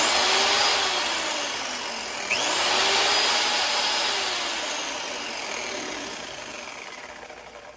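Worx WG309 corded electric chainsaw motor and chain drive running under the trigger on a test run, after a replacement for its stripped large drive gear and bearing. It spins up again with a rising whine about two seconds in, then gradually winds down and fades toward the end.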